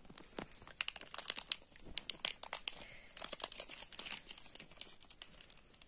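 Small plastic zip-lock bag crinkling as it is handled and opened, a run of irregular crackles.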